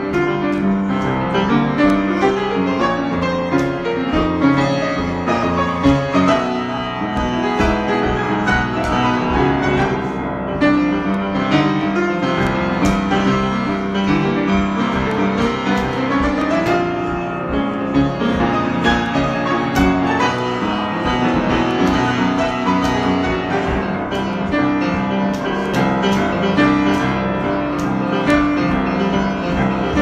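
Solo grand piano, improvised, with many notes struck in quick succession and sustained chords underneath, keeping an even loudness throughout.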